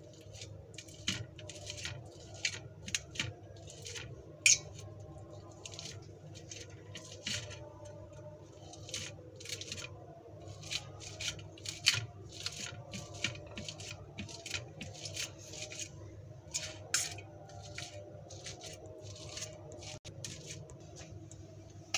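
A metal fork chopping boiled eggs in a stainless steel plate: irregular clicks and scrapes as the tines strike and drag across the metal, with a few sharper clinks scattered through.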